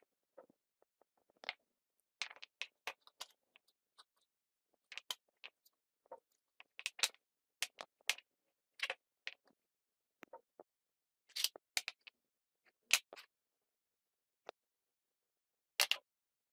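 Irregular light clicks and taps of hunting-knife parts being handled and fitted together: brass guard and pommel, metal tang rod and wooden handle knocking against each other and the table. A few louder clicks come about two thirds of the way through and one near the end.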